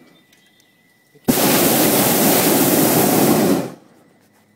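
Hot air balloon's propane burner firing in one blast of about two and a half seconds, starting and stopping abruptly.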